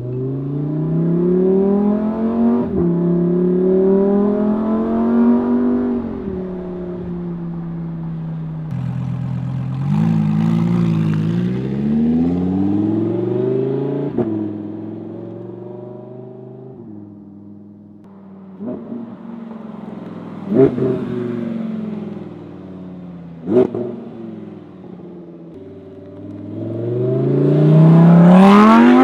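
Lamborghini Huracan Evo's naturally aspirated 5.2-litre V10 accelerating hard through a series of gears, its pitch climbing and then falling back at each shift. Two sharp cracks come from the exhaust in the second half, and a final loud full-throttle pull rises near the end.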